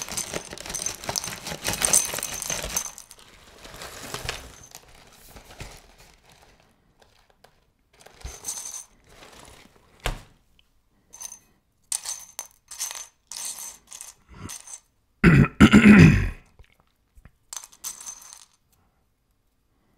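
A plastic cereal bag rustling and crinkling for the first few seconds. Then small hard cereal pieces clicking and dropping now and then, with one louder thump a little past three-quarters of the way through.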